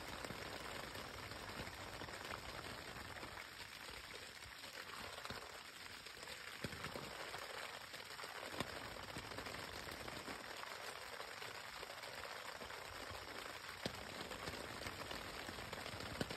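Rain falling on a tent: a steady soft hiss of many small drop hits on the fabric, with now and then a single louder drop standing out, four times.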